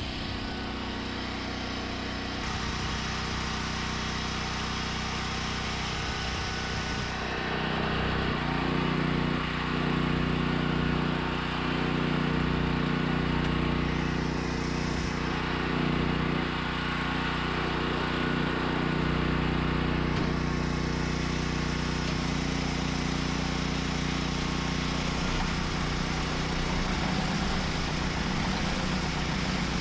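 Starter motor slowly cranking a big diesel truck engine that does not catch, turning over sluggishly because the batteries are running down.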